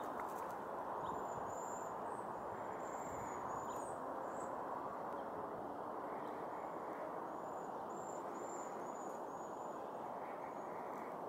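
Cedar waxwings giving their very high, thin calls: a run of short, slightly arched notes, in two bouts, over a steady low background rumble.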